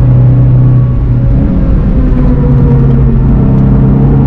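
In-car sound of a VW Golf 7 GTI TCR's turbocharged 2.0-litre four-cylinder engine driving on track over tyre and road rumble. The car is slowing: the engine note steps up in pitch about a second and a half in, as on a downshift, then sinks slowly.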